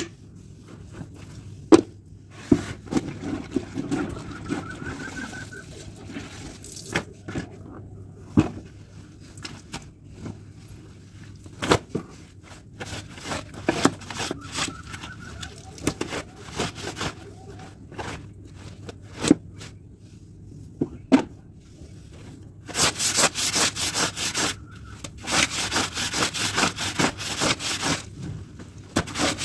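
Clothes being washed by hand: scattered knocks and handling sounds of wet laundry. About twenty-three seconds in, fast, rhythmic scrubbing strokes start as a garment is rubbed against the floor.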